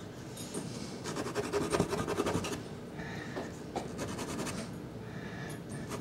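Sennelier soft pastel stick scratching and rubbing across Sennelier La Carte pastel card in quick back-and-forth strokes. The strokes are busiest about a second in, then come lighter and sparser.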